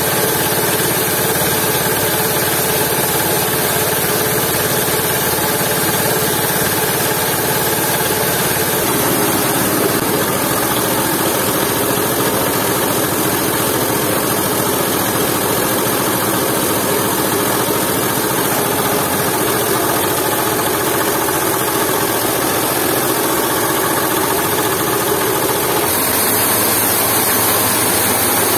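Jiangdong 8 hp single-cylinder diesel engine running steadily, belt-driving a coffee grinder that is grinding dried coffee cherries. The sound fills out about nine seconds in.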